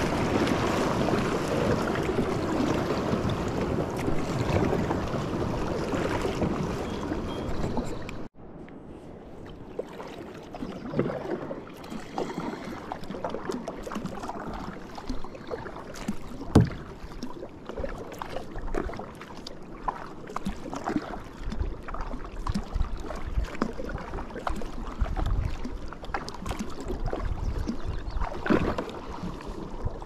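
Rushing river water around a kayak, loud and steady, then an abrupt cut about eight seconds in to quieter water with scattered knocks and clicks from the boat.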